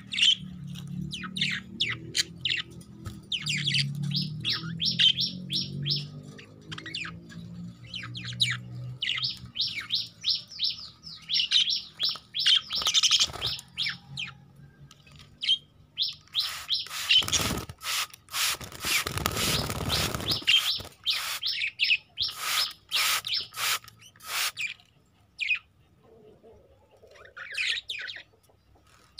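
A flock of young budgerigars chirping in quick runs of short, high chirps, with a burst of noise lasting a few seconds about two-thirds of the way through.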